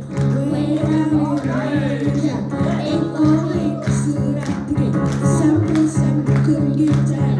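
Live church band music with a steady beat, guitar and a little singing.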